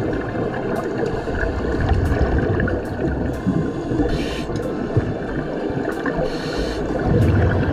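Underwater sound in a pool: a steady low muffled rumble with scattered sharp clicks. Two short hissing bursts of scuba divers' exhaled regulator bubbles come through past the middle and near the end.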